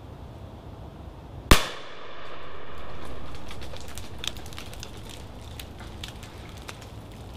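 A single shot from a side-by-side 12-bore shotgun about one and a half seconds in, fired at a wood pigeon and bringing it down. The report is followed by a drawn-out rumble that fades over a couple of seconds, then scattered faint clicks and snaps.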